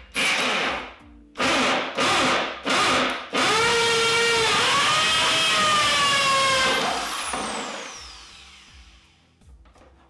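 Corded electric drill with a hole saw cutting through a plastic cooler lid: four short trigger bursts, then a steady run of about three and a half seconds whose motor whine shifts in pitch as the saw bites in. The motor winds down with a long falling whine once the trigger is released.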